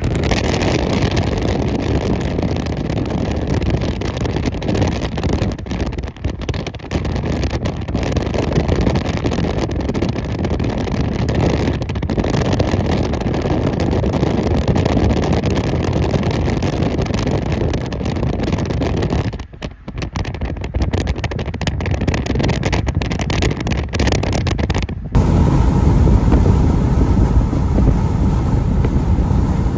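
Steady road and wind noise of a car driving at highway speed, heard from inside. About 25 seconds in the noise changes abruptly and becomes heavier and lower.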